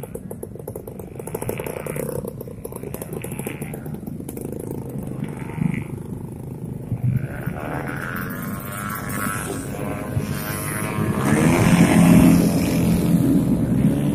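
A stream of small motorcycles and scooters passing at low speed, many engines running at once, with pitches bending as each bike goes by. It grows louder around the last third as bikes pass close.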